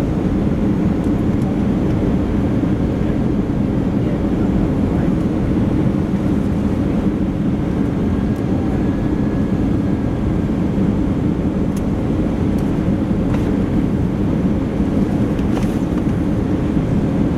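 Steady engine and airflow noise inside the cabin of an Airbus A320 in flight, a loud, even low rumble with a few faint clicks.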